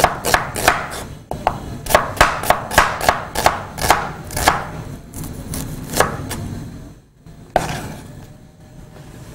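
Kitchen knife slicing an onion on a cutting board: quick, regular chops about three a second that thin out and stop about halfway through, with one more knock near the end.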